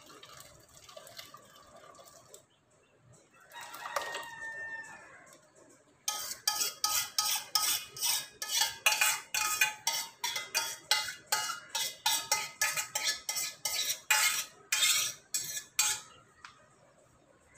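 A spoon scraping and knocking inside a stainless steel pan, a quick train of metallic clinks at about three a second, as freshly curdled chhena is scraped out of the pan into a cloth-lined strainer. The clinks start about six seconds in and stop near the end.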